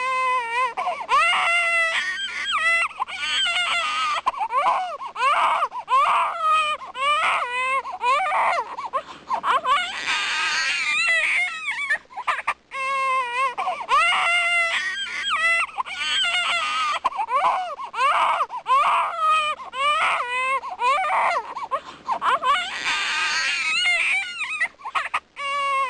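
Infant crying hard: repeated high, wavering wails with short breaks for breath, stopping briefly about halfway through and then starting again.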